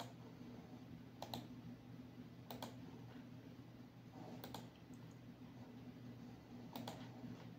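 Four faint, spaced clicks from working a computer's mouse and keys, over a low steady hum.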